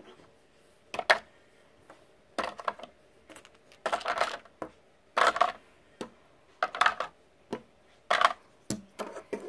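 Small toys knocking and rattling against a hard plastic toy jeep as they are handled and put into it: short clacks and clunks at uneven intervals, about one a second.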